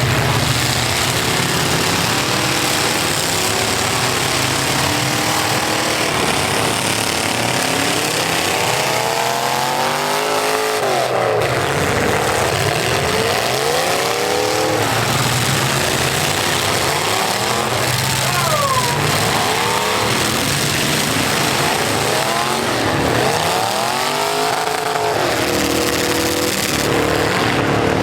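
Several full-size V8 demolition derby cars running at once, engines revving up and dropping back again and again in overlapping rises and falls over a constant loud din.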